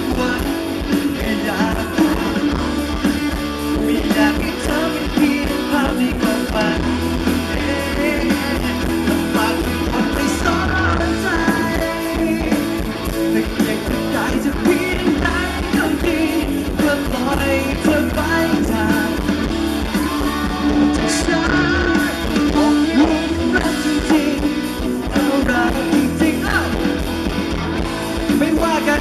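Live rock band playing through a PA: a male singer sings over electric guitar and a drum kit, steady and loud throughout.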